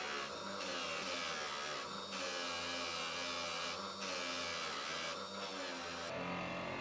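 Bench grinder motor spinning a cloth buffing wheel while a bike fork tube is pressed against it, a steady whir with the wheel rubbing over the metal. A brighter rasp swells about every second and a half as the tube is worked along the wheel.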